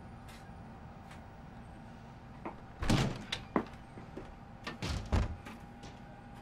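A few dull thuds and knocks, the loudest about three seconds in and again about five seconds in, over a steady low hum.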